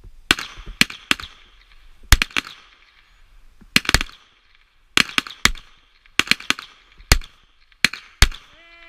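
Pistol shots from several shooters firing a timed series at once: about fourteen sharp cracks at irregular spacing, each with a short echo. A held tone starts near the end.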